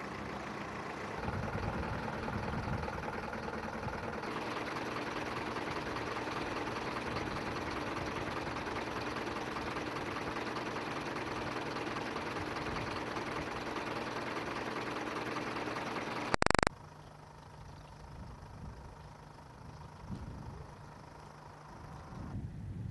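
Vehicle engines idling steadily, a fire engine among them. About sixteen seconds in, a short, very loud crackle at a cut, followed by a much quieter outdoor background.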